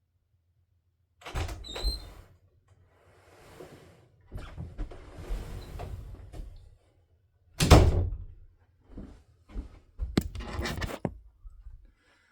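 A string of knocks and thuds with rustling handling noise between them, the loudest thud about eight seconds in.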